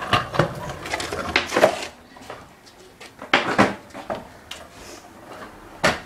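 Stunt scooter clattering on concrete as the rider jumps and flicks it round for a flatground whip, with sharp metallic knocks a little over three seconds in and a loud hit near the end. Camera handling rustle and bumps in the first two seconds.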